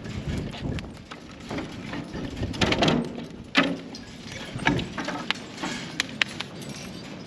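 Irregular knocking and clattering, with sharp clicks coming unevenly and a couple of brief rustling swishes in the middle.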